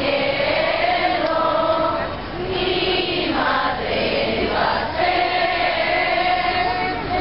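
A crowd of people singing a Christmas posada song together in unison, in long held notes.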